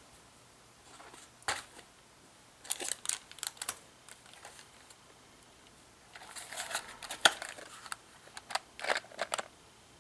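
Squeaky floor under carpet creaking and cracking as it is stepped on: four clusters of short clicks and crackles, the loudest about seven seconds in.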